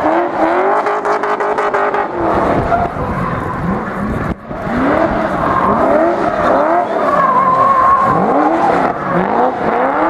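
Nissan 350Z drift car sliding sideways, its engine revving up and down over and over while the rear tyres squeal. In the first two seconds the engine is held high with a rapid stutter, like bouncing off the rev limiter.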